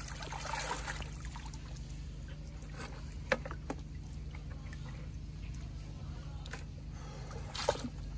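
Muddy water trickling and sloshing around a person wading and handling a gold pan and bucket, over a steady low hum, with a sharp knock about three seconds in and another near the end.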